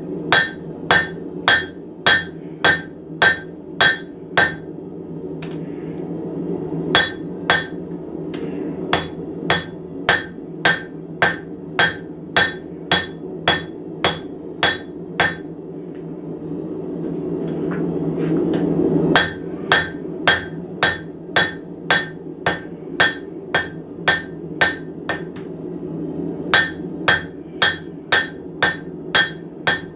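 Blacksmith's hammer striking bar stock on an anvil to flatten it: about two ringing blows a second in steady runs, broken by two pauses of a few seconds, the longer one past the middle. A steady low roar runs underneath.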